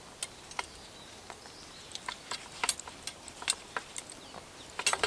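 Leather wrapping and leather cord being unwound by hand from a wooden banner pole: soft rustling with scattered, irregular light clicks and taps, a few sharper ones near the end.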